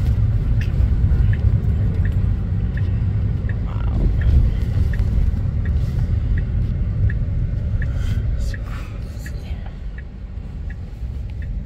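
Road and tyre rumble inside the cabin of a moving Tesla electric car, with no engine sound, while the turn-signal indicator ticks evenly about three times every two seconds.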